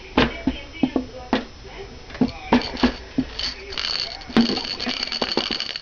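A small child banging a hard toy or object: irregular sharp knocks and clinks, turning into a quicker, denser rattling a little past halfway.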